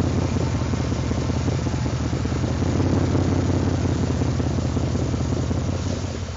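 2012 Mustang GT's 5.0-litre V8 idling with a steady low hum, swelling slightly about three seconds in. The owner calls it a rough idle.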